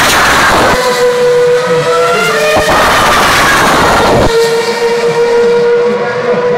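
Formula 1 cars with 2.4-litre V8 engines passing at speed: one loud pass at the start and another about three seconds in, each a rush of engine sound whose pitch falls as it goes by. A steady high tone holds between and after the passes.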